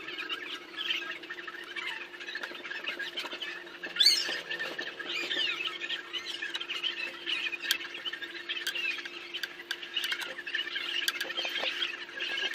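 Small birds chirping busily, with one loud, sharp chirp about four seconds in. Under the chirping runs a steady low hum, with scattered light clicks.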